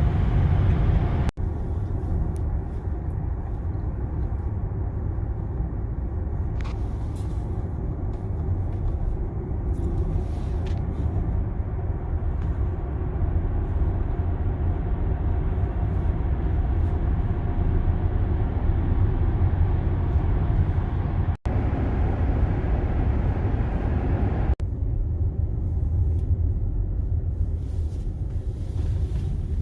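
Steady low rumble of tyre and road noise inside the cabin of a moving car, broken by a few abrupt instant gaps.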